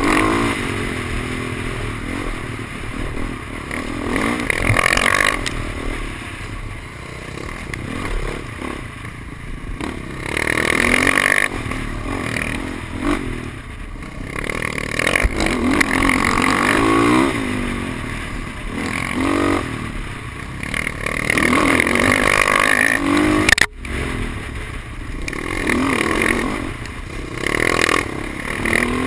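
Dirt bike engine revving up and down as it is ridden along rough trail, its pitch rising and falling with each burst of throttle, with rattling and rushing noise on a helmet-mounted microphone. The sound cuts out for an instant about three-quarters of the way through.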